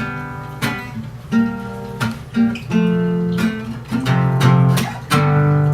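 Acoustic guitar strumming chords, the chord changing every second or so: the introduction to a song before the singing comes in.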